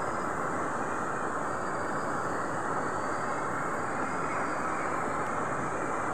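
River water rushing steadily over rocks, an even, unbroken rush.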